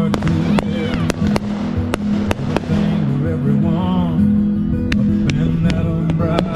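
Fireworks display set to music: repeated sharp bangs and pops of fireworks going off, scattered irregularly over loud music playing throughout.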